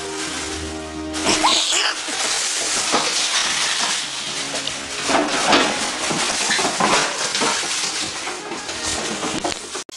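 Background music for about the first second, then loud rustling and crackling of a plastic bag as a cat caught in it scrambles and bolts, with repeated clattering knocks.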